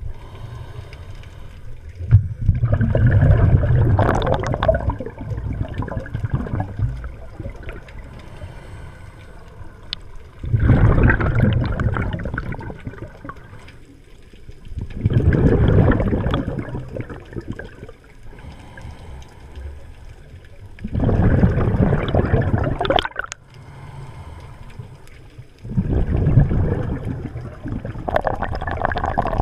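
Scuba diver breathing underwater through a regulator: five loud rushes of exhaled bubbles about every five seconds, each lasting a few seconds, with quieter stretches between as the diver breathes in.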